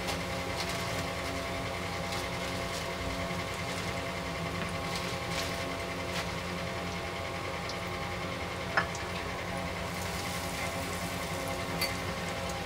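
Besan-battered bread pakoras deep-frying in hot oil in a kadhai: steady sizzling with small crackles, and a sharp click about nine seconds in.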